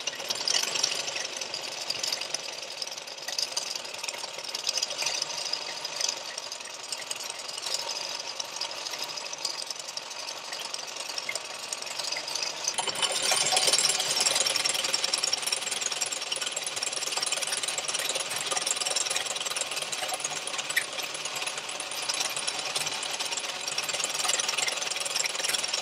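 W.F. & John Barnes No. 5 treadle (velocipede) lathe under foot power, a cutting tool turning a brass workpiece with a continuous rattling chatter. It gets louder and brighter about halfway through. The workpiece is held in an old drill chuck, which gave horrendous cut quality.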